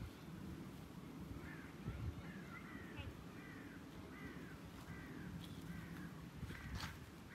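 A bird calling over and over in a steady series of short calls, about two a second, starting about a second and a half in.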